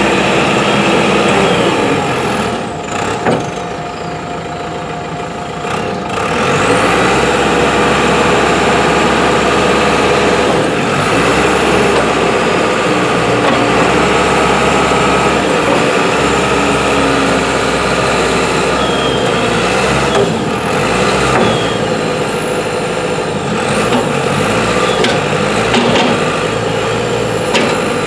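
JCB 527-55 telehandler's JCB Dieselmax diesel engine running. The revs ease off for a few seconds near the start and rise again about six seconds in, with a high whine that glides up and down over the engine.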